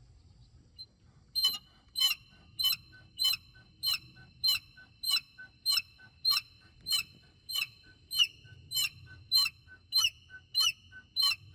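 BMW E70 X5 making its bird-like chirping noise: short high-pitched chirps starting about a second and a half in and repeating evenly, a little under two a second, over a faint low rumble.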